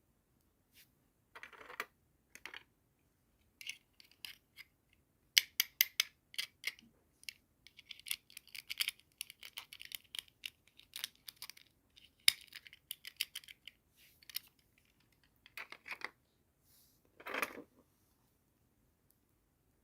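Small hard plastic toy pieces and packaging being handled during unboxing: a run of light clicks and taps, with a few short rustles.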